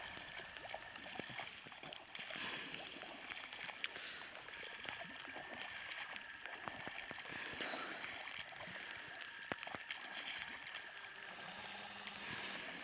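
Oars of an inflatable rowboat dipping and splashing as it is rowed, with scattered small water clicks and splashes.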